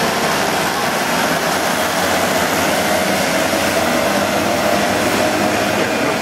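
A pack of small two-stroke moped engines running together as the riders pass, several engine notes at once over a steady loud drone.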